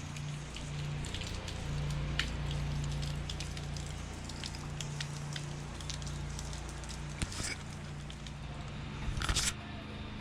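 A steady low machine hum that swells and eases, with scattered crackles and clicks throughout and a louder burst of clicks near the end.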